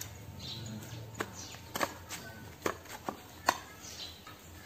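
Dry coconut husk being torn apart by hand: a handful of sharp snaps and cracks, about six over two seconds, the last one the loudest, as fibrous pieces of husk are pulled away from the nut.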